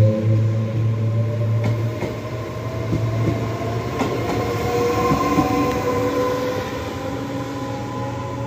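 ETR 104 'Pop' electric train pulling away, its traction motors whining in a tone that rises slowly as it picks up speed. A low hum fades out about two seconds in, and the wheels click a few times over the rails.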